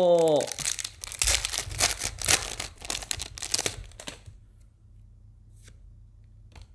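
Foil Pokémon card booster pack being torn open and crinkled for about three and a half seconds, then it falls quiet with a few faint ticks.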